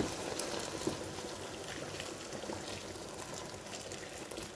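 Boiled water poured in a steady stream from a kettle into a pot of chicken, vegetables and tomato sauce.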